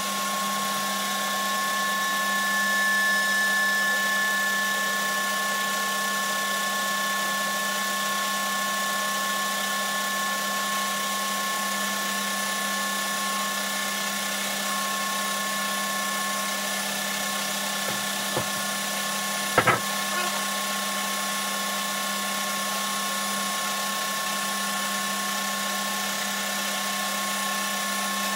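Felder FB501 bandsaw running and ripping a long blue cedar beam lengthwise: a steady machine whine and hum. A couple of sharp knocks come about two-thirds of the way in.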